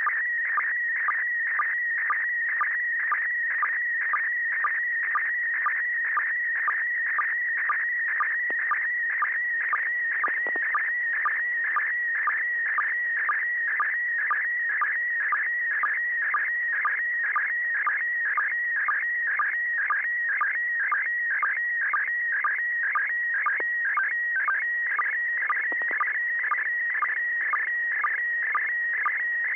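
Slow-scan television picture signal from the International Space Station, heard through an Icom IC-9700's FM receiver on 145.800 MHz: a high, steady, slightly wavering tone broken by a short lower blip about twice a second, the line sync pulses, over faint radio hiss.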